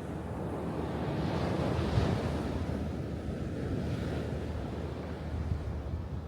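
Atlantic Ocean surf: a wave builds, breaks about two seconds in, and washes out slowly. Wind rumbles on the microphone throughout.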